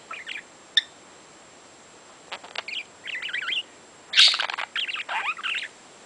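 Budgerigar chattering in quick, wavy, high-pitched warbles, in three bursts. The last and loudest comes about four seconds in.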